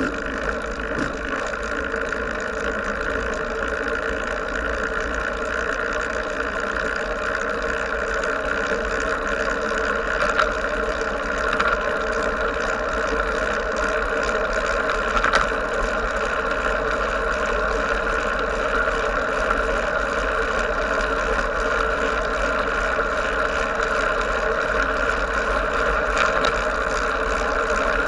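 Steady wind rush and tyre rumble on a bicycle-mounted action camera riding along a paved road, with a deep low buffeting, and a few short clicks or knocks partway through.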